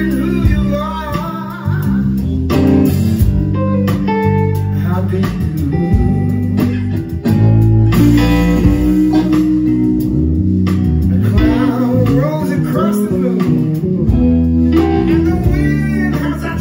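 Live blues band playing: electric guitars, bass guitar and drums.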